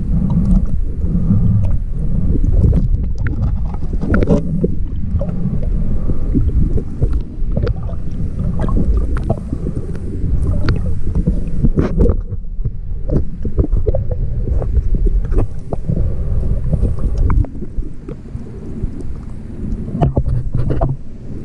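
Muffled underwater sound heard through a camera's waterproof housing: a low, churning rumble of water movement with many scattered clicks and knocks.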